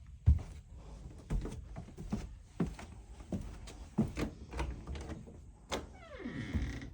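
Footsteps knocking on an RV's floor, about one step every two-thirds of a second, the first the loudest. Near the end comes a short falling creak.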